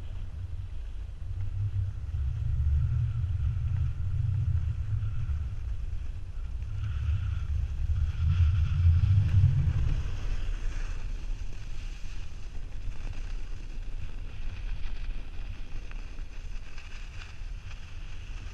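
Wind buffeting the microphone of an action camera on a selfie stick while snowboarding down a piste: a low rumble, heaviest for the first ten seconds, over the hiss of the snowboard sliding and scraping on the snow.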